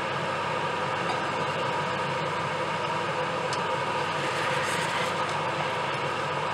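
Steady bubbling and hissing of a large octopus cooking in its own released juices in a stainless steel pot over high heat, with a few faint clicks of plastic spatulas turning it about halfway through.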